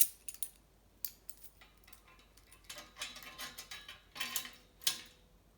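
Small metal parts clinking and rattling: a sharp click at the start, a stretch of clattering a little under three seconds in, and another sharp click near the end, as tools are handled on a steel bicycle frame.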